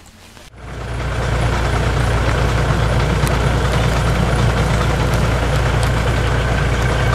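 An engine running steadily at a constant speed, cutting in abruptly about half a second in.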